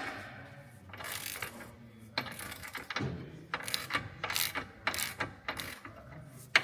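Hand ratchet wrench worked in repeated short strokes, a quick run of pawl clicks on each swing, as a suspension control-arm bolt is tightened.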